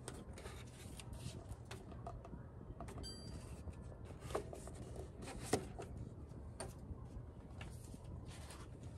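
Quiet hand-handling sounds of art materials at a desk: faint rustling and scattered light taps and clicks, two slightly louder clicks about four and a half and five and a half seconds in.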